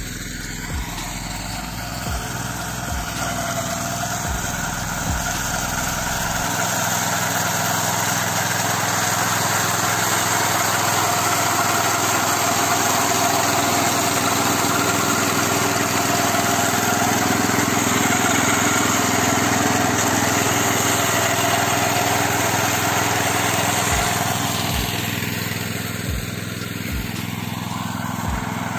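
Niva MB-2 walk-behind tractor's engine running under load with its rotary mower cutting tall smooth brome grass. It grows louder over the first few seconds, holds steady, and fades somewhat near the end.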